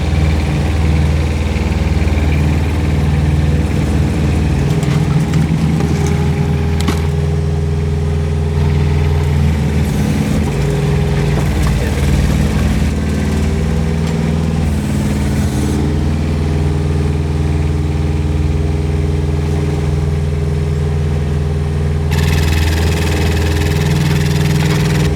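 Rippa R10 mini excavator's Kubota diesel engine running steadily during a hydraulic lift test. A higher hiss joins it about 22 seconds in.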